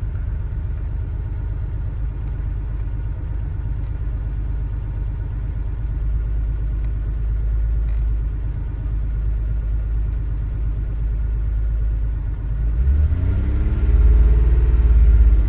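Alfa Romeo Milano V6 engine, run by a Megasquirt ECU, idling steadily as heard from inside the cabin. Near the end it is revved up and allowed to fall back.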